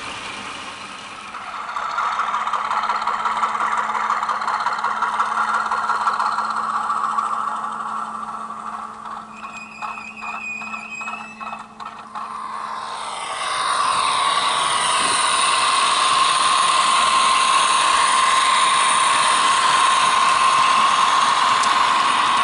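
Electric model trains running on the layout track: a steady motor whine with wheel and rail noise, a brief high squeal about ten seconds in, then a louder, steady whine from a train passing close by in the second half.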